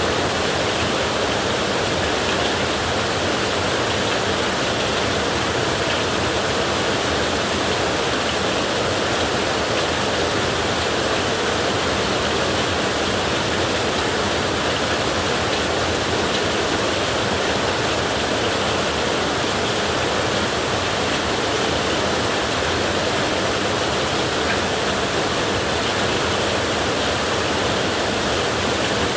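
Heavy rain falling on a tin roof, a steady, unbroken hiss with no thunder.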